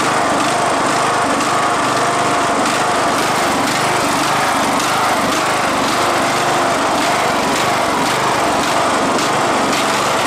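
Craftsman riding lawn tractor's small engine running steadily as the tractor is driven, its pitch wavering slightly. It is running only on the fuel left in its carburetor, the fuel lines having been drained.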